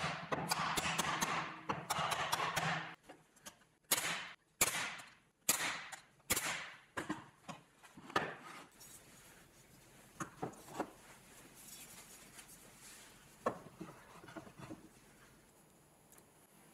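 Plywood jig parts being pushed together, a few seconds of scraping, then a mallet knocking the slotted plywood pieces home: about six sharp wooden knocks roughly a second apart, followed by a few fainter clicks.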